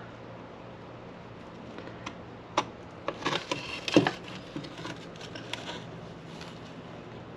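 Scattered light clicks and knocks from handling the chainsaw's recoil starter parts while threading the new starter rope, the loudest knock about four seconds in, over a faint steady hum.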